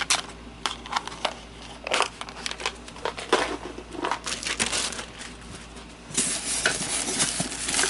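Handling of packaging and small plastic parts: scattered clicks and taps, then from about six seconds in a continuous crinkling of plastic wrapping.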